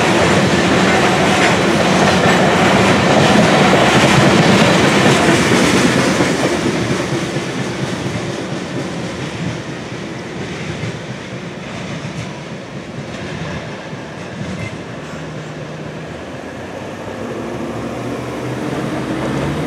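Covered hopper cars of a freight grain train rolling over the rails with clickety-clack wheel clatter. The clatter is loud for the first few seconds, then fades steadily as the end of the train passes and recedes. Near the end, a pickup truck's engine rises in pitch as it pulls across the crossing.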